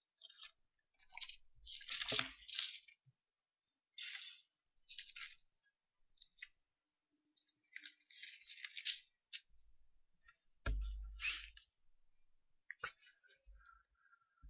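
Faint, intermittent rustling of Bible pages being turned while the passage is looked up. A low thump comes about ten and a half seconds in, and a single sharp click follows a couple of seconds later.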